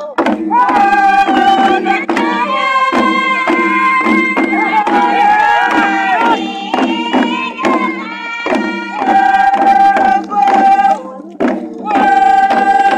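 A group chanting in unison, with long held notes that slide at their ends, over a steady beat of long hand-held wooden drums.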